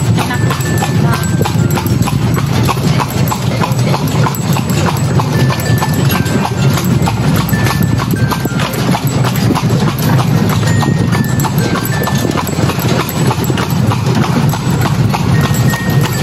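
Horse's hooves clip-clopping steadily on the road as it pulls a delman, a horse-drawn carriage, heard from aboard, over a low steady rumble.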